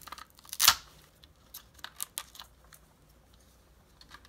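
Plastic-and-card blister pack of a coin-cell battery being peeled and torn open by hand: one loud crackle under a second in, then scattered light clicks and crinkles.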